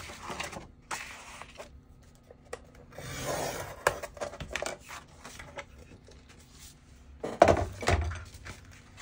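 Scoring stylus drawn along kraft cardstock in the groove of a scoring board, a dry scraping rub in short strokes near the start and again about three seconds in. About seven and a half seconds in, louder paper handling with light knocks as the cardstock is lifted and moved.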